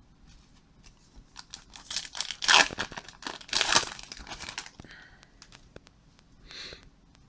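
The wrapper of a 2016 Topps Series 2 baseball card pack being torn open and crinkled, loudest in two tearing rushes between about two and four seconds in, with light handling ticks around them.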